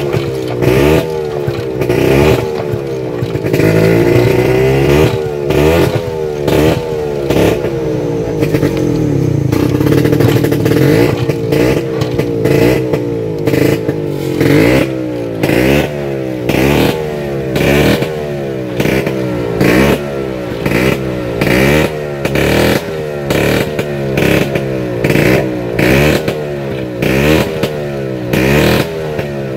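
Vespa scooter engine being revved hard again and again. Longer revs in the first half give way to short, regular throttle blips about once a second.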